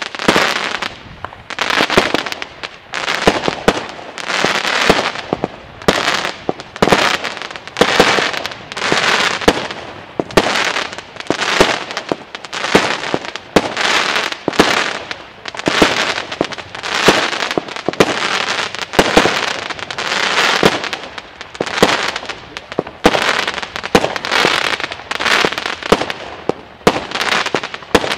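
Consumer firework battery firing a continuous string of aerial shots, roughly one a second, each a sharp bang with hissing between the shots.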